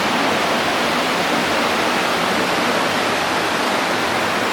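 Elephant Falls, a tiered waterfall, pouring with a steady, loud rush of falling water.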